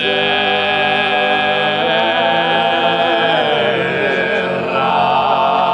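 Sardinian folk choir singing in close harmony, holding long chords. A wavering ornament runs through the middle, and the chord shifts about four and a half seconds in.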